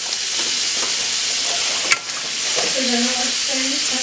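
Bison meatballs sizzling steadily as they brown in oil in a cast-iron skillet, with one sharp click about two seconds in.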